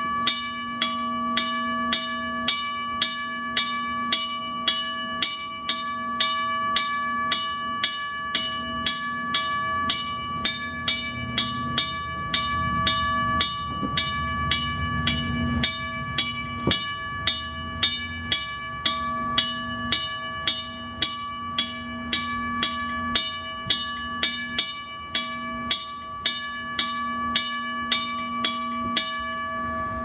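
US&S teardrop railroad crossing bell, an electromechanical bell whose hammer strikes the gong steadily about twice a second. The gong's tones ring on between strokes, and the ringing stops near the end.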